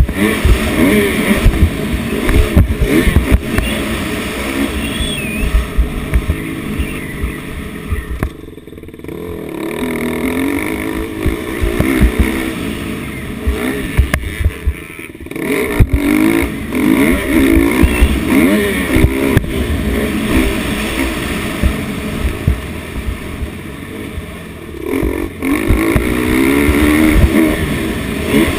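Motocross dirt bike engine revving up and down as it is ridden hard, with its pitch rising and falling through the gears. The throttle is briefly chopped about eight seconds in and again around fifteen seconds.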